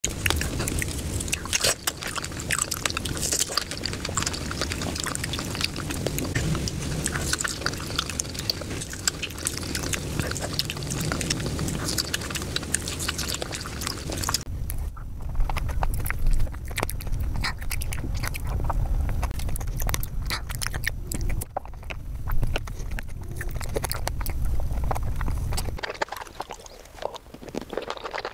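Close-miked ASMR eating of juicy fresh fruit: biting and chewing with many crisp clicks and wet mouth sounds. About halfway through the sound turns duller and lower, with fewer crisp clicks.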